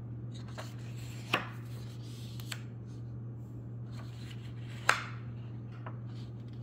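Pages of a hardcover picture book being handled and turned: light paper rustling with a few short taps, the sharpest about five seconds in, over a steady low hum.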